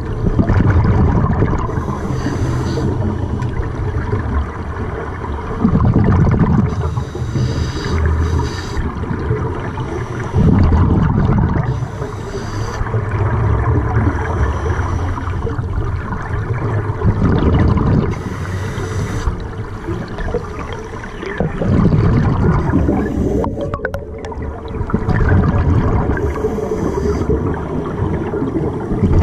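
Scuba regulator breathing heard underwater. A hissing inhale through the demand valve comes every few seconds, followed by a burst of exhaled bubbles bubbling and gurgling past the microphone.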